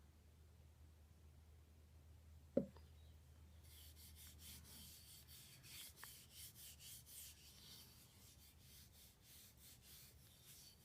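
Faint steady hum, with a single sharp knock a couple of seconds in, then a quick run of faint rubbing strokes, about two or three a second. The strokes are typical of a cloth rubbing over a chisel's wooden handle.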